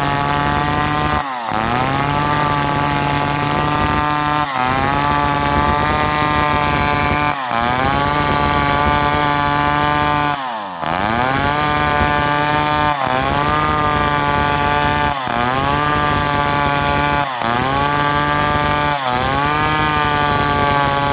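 Chainsaw-driven woodworking machine running, its pitch dropping sharply about every two to three seconds and then climbing back, eight times over.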